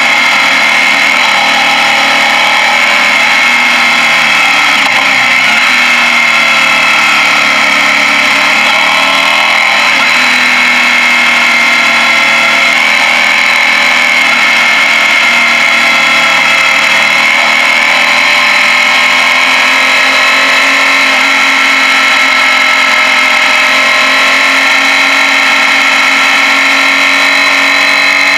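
Suzuki Gladius V-twin motorcycle engine running under way on a winding descent. Its note dips and climbs a couple of times in the first ten seconds, then holds steady.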